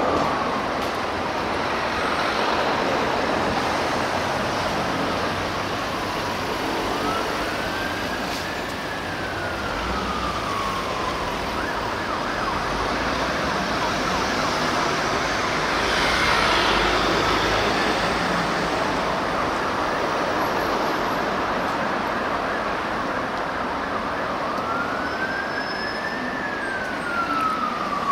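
Fire engine siren on a slow wail, its pitch rising and falling in long sweeps of several seconds over steady city traffic noise. The traffic noise swells louder about halfway through.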